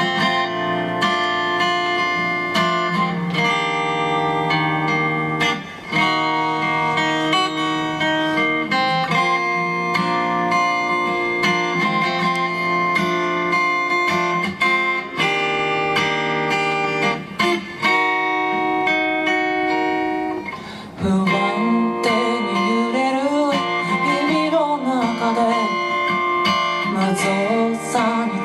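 Guitar music: plucked, ringing chords held in long blocks. About twenty seconds in, a melody line with sliding, bending pitches joins in.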